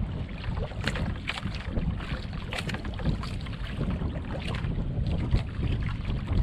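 Wind rumbling on the microphone over open sea, with water sloshing and slapping in short splashes against a small outrigger boat.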